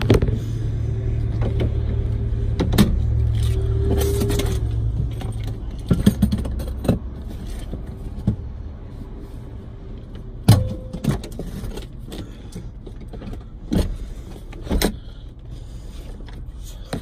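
Scattered clunks and knocks as the front seat and engine cover of a Toyota HiAce van are unlatched and lifted to open the engine bay, over a steady low hum that fades out about five seconds in.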